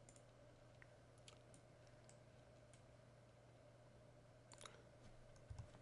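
Near silence: a faint steady low hum with several light computer-mouse clicks scattered through, as a right-click menu and a Properties dialog are worked.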